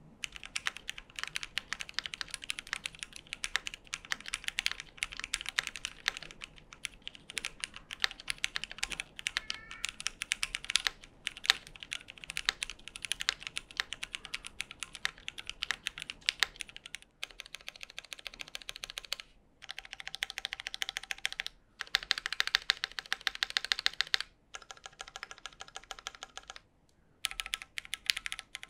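Steady typing on a Keychron Q1 aluminium mechanical keyboard in stock form, with lubed Cherry MX Black Hyperglide linear switches, stock foam and WOB PBT Cherry-profile keycaps. The typing comes in runs of clacks with short pauses between them, and a metallic case ping rings under the keystrokes.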